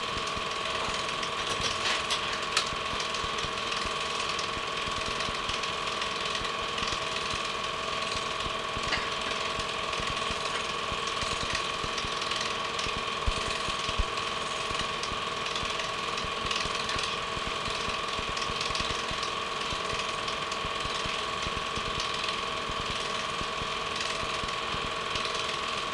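Home-movie film projector running: a steady mechanical clatter from the film transport, with a constant whine underneath.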